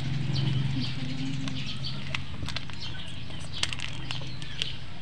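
Birds chirping in short scattered calls over a steady low hum.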